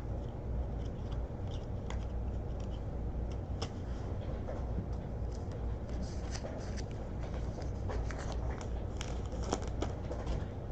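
Trading cards being handled: soft, scattered rustles and light ticks over a steady low hum, busier in the second half.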